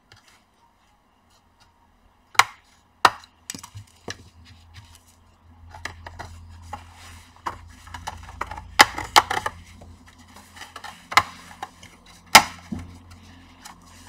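Plastic pry tool sliding along the seam of a laptop's plastic bottom cover, the cover's retaining clips popping loose one after another with sharp clicks and snaps in small clusters. The clips are stiff, as on a brand-new laptop that is hard to open.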